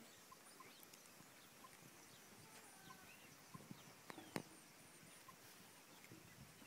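Near silence: faint outdoor ambience with a few thin high chirps and scattered small clicks, the loudest a sharp click about four seconds in.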